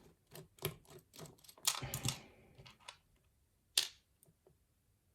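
Small metal lock parts and tools clicking and tapping as a challenge lock is taken apart for gutting: a quick run of light clicks over the first three seconds, one louder sharp click near the four-second mark, then a few faint ticks.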